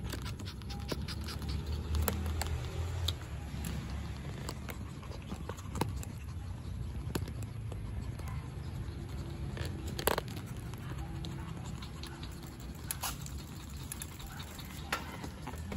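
Riding a bicycle over pavement: a steady low rumble of wind and tyres, with scattered light clicks and scrapes from the wire bike basket carrying the puppies, one sharper click about ten seconds in.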